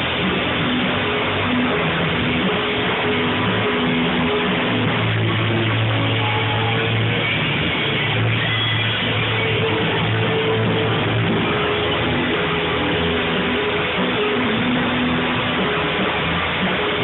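A live band playing a song, with guitar to the fore; loud, dense and continuous.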